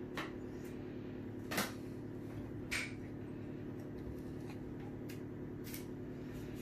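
A utensil clicking and knocking lightly against the brownie tin a few times while chocolate frosting is spread, the clearest knock about a second and a half in, over a steady low hum.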